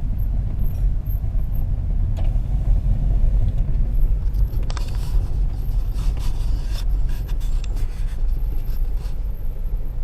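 A steady low rumble, with a distant chainsaw cutting from about five seconds in until about nine seconds in.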